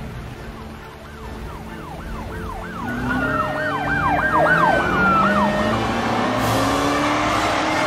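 Police car sirens approaching and growing louder: a fast yelping siren sweeping up and down about three times a second, with a slower wailing siren beneath it.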